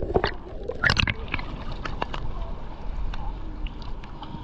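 Shallow rock-pool water sloshing and splashing as a gloved hand and the camera come up out of the water, with a louder splash about a second in and lighter splashing and ticks after.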